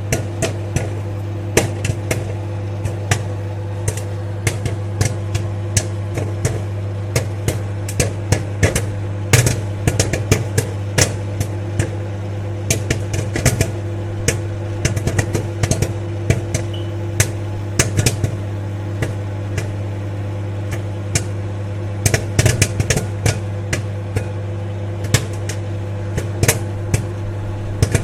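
Popcorn popping in a running microwave oven: the oven's steady low hum with sharp, irregular pops, several a second, coming in flurries.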